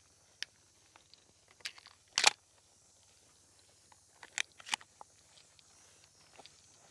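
Scattered sharp crunches and crackles of dry field cover being stepped through. The loudest comes about two seconds in, and a pair follows a little over two seconds later.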